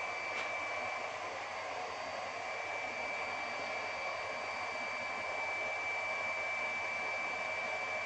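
Steady rushing and bubbling of aeration in a biofloc fish tank, with air from submerged lines boiling up through the water surface. A constant high-pitched whine runs through it.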